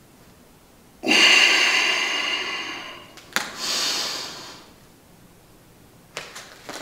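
A man's heavy breathing while moving through a yoga flow. There are two loud breaths: a long one starting sharply about a second in and trailing off, then a shorter one, with a small click between them.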